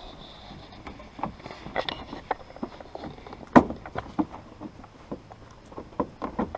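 Irregular clicks and knocks of hand work on car interior trim: plastic panels being pulled loose and tools handled. The sharpest knock comes about three and a half seconds in.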